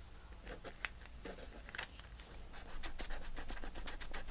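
Pen scratching faintly on a paper tag as it marks a line along the edge, in short light strokes that get a little busier near the end.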